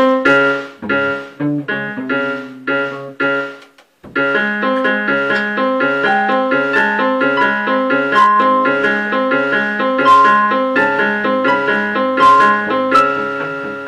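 Live band music led by a keyboard playing repeated notes in a steady rhythm. The music stops for a moment about four seconds in, then starts again.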